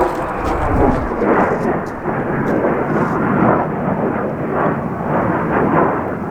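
Heavy wind buffeting on the microphone over the rumble of a car driving at speed on an open road.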